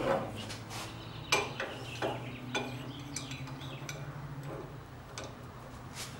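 Irregular light metal clicks and clinks, about six of them, from an adjustable wrench being worked on the adjuster of a Quaife quick steering rack, over a low steady hum.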